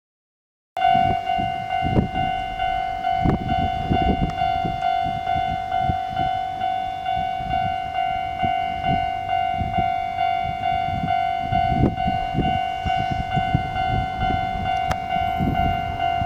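Japanese railway level-crossing warning bell ringing in a fast, even rhythm, starting about a second in, over an irregular low rumble.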